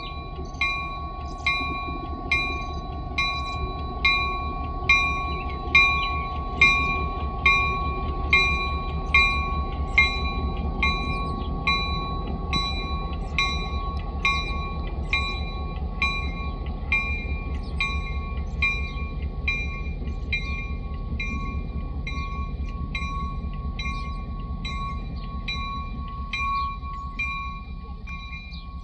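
Railroad warning bell ringing steadily, a little over one strike a second, fading somewhat over time, over the low steady rumble of a diesel locomotive's engine.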